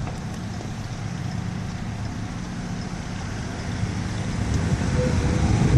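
Steady road and engine noise of a moving car heard from inside the cabin, growing louder over the last couple of seconds.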